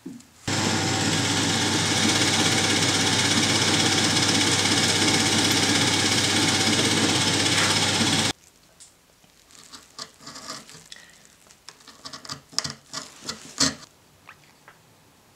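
Benchtop drill press running and cutting into a strip of wood for about eight seconds, starting and stopping abruptly. Scattered light clicks and taps follow.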